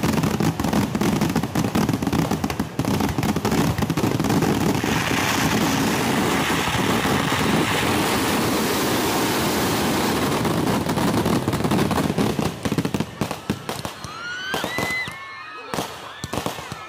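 Kerala temple fireworks (vedikettu) going off in a dense barrage of rapid cracks and bangs. After about thirteen seconds the barrage thins to separate bangs, with a few short rising and falling whistles.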